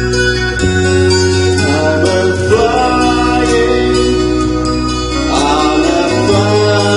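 Karaoke backing music: sustained chords over a bass line that moves to a new note every couple of seconds.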